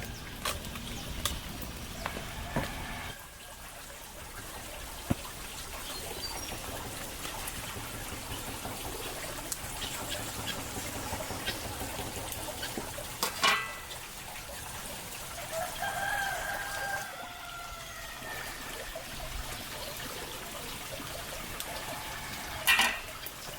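Farmyard chickens calling, with one drawn-out call about sixteen seconds in, over a steady background hiss and a few sharp knocks.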